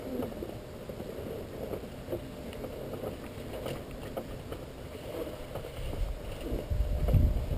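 Rustling and small knocks of a person clambering out of a flexwing microlight's seat, with a louder low rumble near the end.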